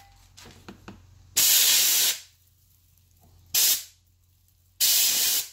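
Three hissing blasts of spray washing a carbon-fouled engine valve. The first and last blasts are longer and the middle one is short.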